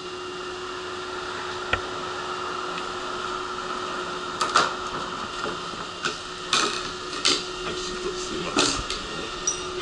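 A stopped electric train hums steadily with its doors open. From about four and a half seconds in comes a run of sharp metallic clanks and knocks as a portable boarding ramp is set at the door for a wheelchair.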